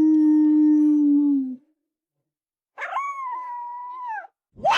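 A dog howling one long, steady note that sags in pitch as it ends about a second and a half in. After a short silence comes a second, higher howl of about a second and a half that rises at the start and drops away at the end.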